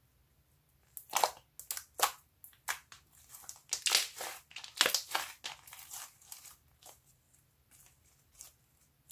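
Glittery purple slime being squeezed and kneaded by hand, giving a run of sharp crackling pops and squelches. The pops start about a second in, come thickest around four to five seconds, and thin out to a few faint clicks after about seven seconds.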